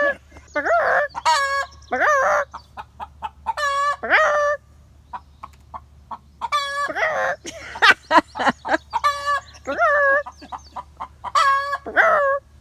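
Hen's egg-laying song just after laying: rapid short clucks building into long, drawn-out squawks, repeated several times.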